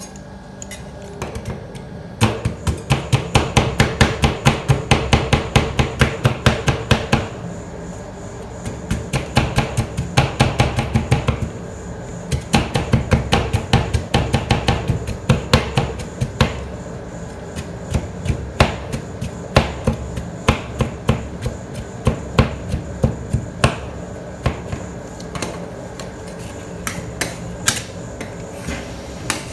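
Two metal spatulas chopping Oreo cookies and strawberries into cream mix on the steel cold plate of a rolled ice cream pan. Fast runs of sharp metal taps come in bursts of a few seconds with short breaks, and grow sparser in the last half.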